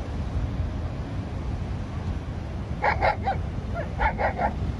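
Small dog barking in two quick runs of yips, about three seconds in and again about a second later, over a steady low rumble of surf and wind.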